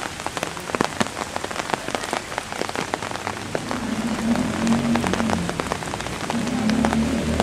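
Heavy rain falling on flooded pavement, a steady hiss with many sharp individual drops ticking close by. About halfway through, the low hum of a car engine comes in under the rain.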